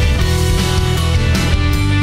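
Loud rock music with guitar and a steady beat.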